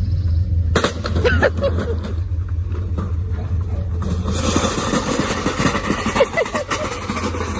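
An engine idles steadily underneath. About a second in there is a sudden clatter of knocks as the wooden mailbox post is torn out of the ground. From about halfway through, the metal mailbox and post scrape and rattle loudly along the asphalt as the pickup drags them by a strap.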